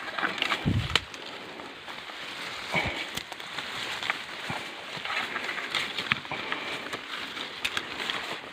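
Footsteps crunching on an outdoor path, scattered irregular crackles and clicks with a dull thump about a second in, over a steady outdoor hiss.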